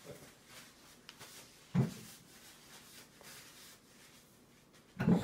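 A baby's plastic spoon scraping and tapping in a metal-lined feeding bowl, with one sharp knock about two seconds in and another louder knock just before the end.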